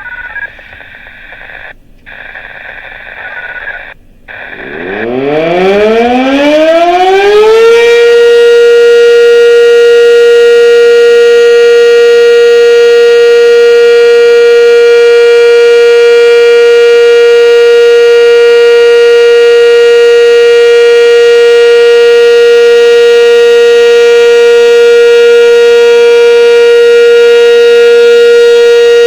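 Sentry 7V8 outdoor warning siren winding up about four seconds in, its pitch climbing steeply for about three seconds. It then holds one steady, very loud tone.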